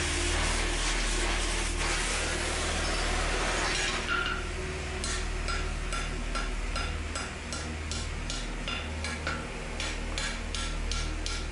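Oxy-fuel cutting torch hissing steadily as it heats the edge of a steel plate, then from about five seconds in a hand hammer striking the hot steel on the anvil in quick regular blows, about two to three a second, each with a short metallic ring, over the continuing torch hiss.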